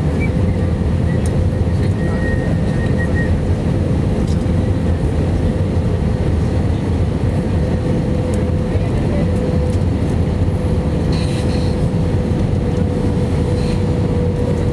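Steady engine and airflow noise inside the cabin of an Airbus A319-115 jetliner: a loud low rumble with a steady mid-pitched hum over it.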